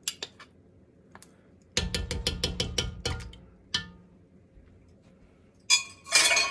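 A metal utensil tapping and clinking against a cooking pot. A quick run of ringing taps about two seconds in, then two louder clatters near the end.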